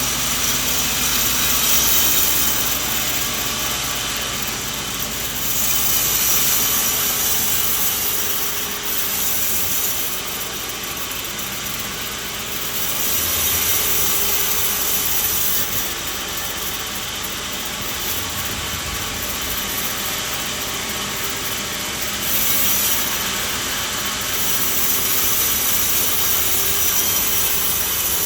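Sawmill blade cutting through a coconut tree log: a steady, noisy, high-pitched cutting sound over the running machine, growing louder and easing off every few seconds as the cut goes on.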